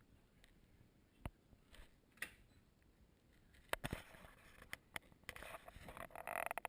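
Faint, muffled clicks and knocks against a GoPro Hero 2's sealed waterproof housing, a few sharper taps past the middle and a denser run of scraping knocks near the end.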